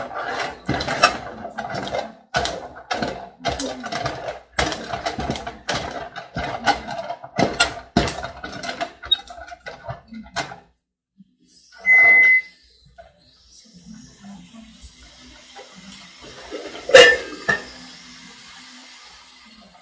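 A wooden stirring stick turns and beats thick dough in an aluminium pot, with irregular scraping and knocking strokes for about ten seconds. Then comes a short high beep, followed by a faint hiss and one sharp knock near the end.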